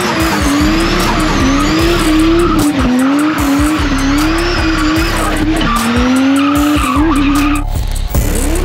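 Lexus IS300 spinning donuts: the engine's pitch swings up and down as the throttle is worked, over the steady squeal of spinning rear tyres. It cuts off abruptly near the end.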